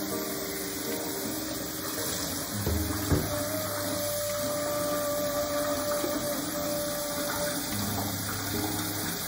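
Kitchen tap running into a stainless steel pot of rice in a steel sink as the rice is rinsed and stirred by hand. There is a single knock about three seconds in.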